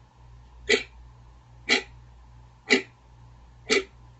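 Quartz wall clock ticking once a second: four sharp ticks over a faint, steady low hum.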